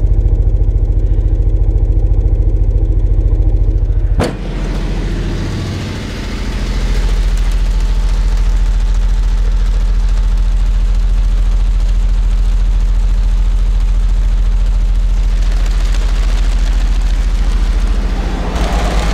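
Rockford Fosgate Punch 15-inch subwoofer in a ported box playing a very low test tone from a tone generator, a loud, steady deep hum with a fast pulsing buzz, which fits the car body and trunk lid rattling and flexing with it. A sharp click about four seconds in, and the level dips briefly before settling again.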